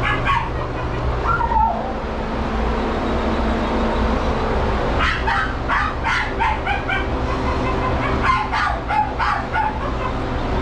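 Dogs barking and yipping in short bursts, with a whining call that falls in pitch about a second and a half in, over a steady low hum.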